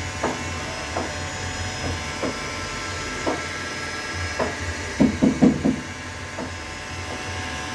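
Room background: a steady low hum with scattered light knocks and clicks about once a second, and a quick cluster of louder knocks about five seconds in.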